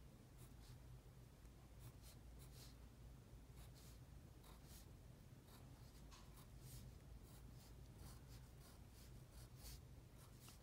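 Faint scratching of a wooden pencil on paper: many short, irregular strokes as brick lines are drawn.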